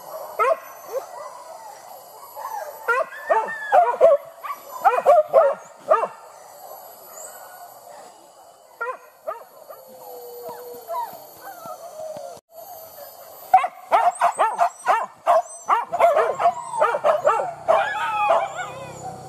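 Leashed hunting dogs barking in short, high calls, in two spells with a lull of several seconds between them.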